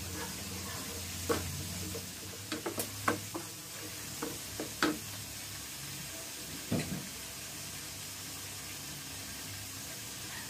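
Chili garlic sauce sizzling with a steady hiss in a frying pan on a gas burner. For the first five seconds a wooden spatula stirs it, knocking against the pan a handful of times, and there is one duller knock near seven seconds; after that the sauce sizzles on its own.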